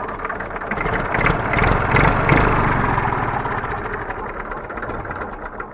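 IMT 533's IMR three-cylinder diesel engine, the 42 hp version, running. It swells about a second in, then fades away, its firing strokes slowing near the end as it runs down.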